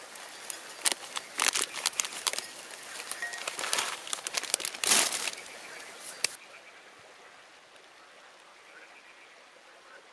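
A plastic snack packet crinkling as its contents are shaken out over a salad bowl, in a run of crackles and rustles. It ends with hands brushed together about five to six seconds in.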